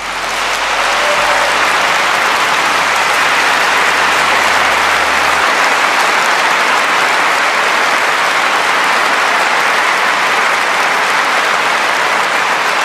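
Applause from a large audience, swelling over the first second and then holding steady.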